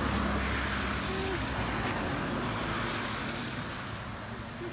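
Small engine of a homemade four-wheeled kart running steadily, getting a little quieter toward the end.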